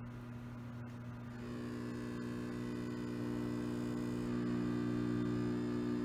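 Riehle torsion testing machine's electric drive humming steadily. About a second and a half in, a louder, richer hum joins it as the loading drive engages to bring the load back up.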